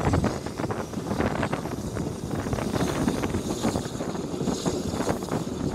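Steam-hauled passenger train running along the track, heard from an open carriage window: a steady rumble with irregular clatter from the wheels, and wind buffeting the microphone.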